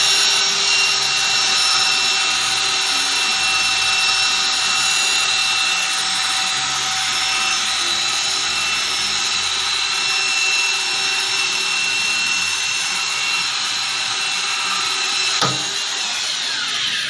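Handheld electric drill running steadily under load as its bit works into the metal hub of a stainless-steel dough-mixer drum, with a short knock near the end before the motor winds down.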